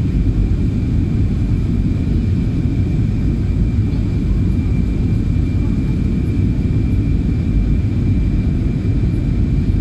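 Cabin noise inside an Airbus A320 descending to land: a steady low rumble of the turbofan engines and airflow, with a thin high whine held at one pitch over it.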